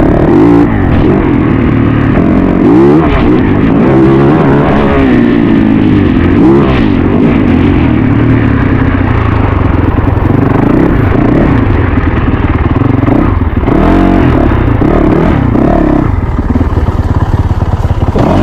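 Yamaha YZ450FX single-cylinder four-stroke dirt bike engine running hard on a trail ride. The engine note rises and falls over and over as the throttle is opened and closed, and it is loud.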